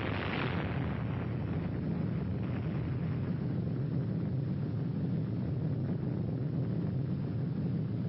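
Explosion sound effect for an atomic bomb blast: a hissing roar that thins out in the first second, leaving a steady deep rumble.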